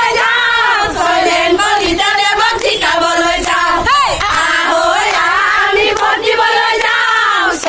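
A small crowd of women and men chanting campaign slogans together, their voices loud and overlapping.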